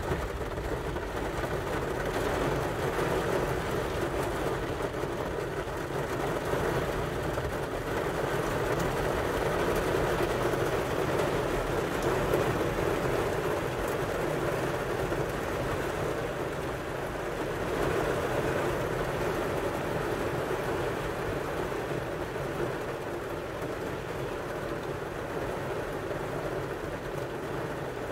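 Rain falling on a car's roof and windows during a thunderstorm, a steady, even noise heard from inside the car.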